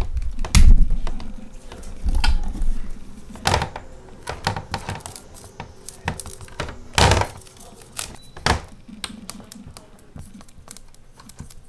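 Dry-erase marker writing on a whiteboard: scratchy strokes and small taps, with a few sharp clicks spaced a couple of seconds apart and a heavy low thump near the start.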